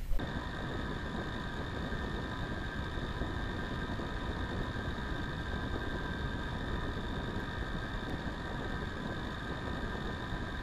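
Small model-aircraft propeller spun by its motor on a test stand, running at a steady speed: an even whir with a constant high whine. A sharp click sounds right at the start.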